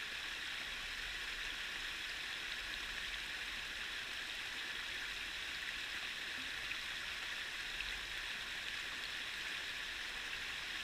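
Small forest stream spilling over rocks in a shallow cascade: a steady rush of running water.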